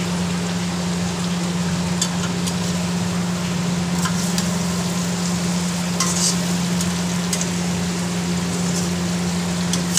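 Jackfruit pieces sizzling in hot oil and masala in an iron kadhai as they are stirred with a metal spatula, the spatula knocking against the pan now and then. A steady low hum runs underneath.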